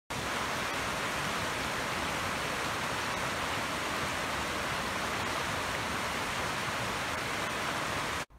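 Fast-flowing rocky burn rushing over boulders in white water, a steady full rush that cuts off suddenly near the end.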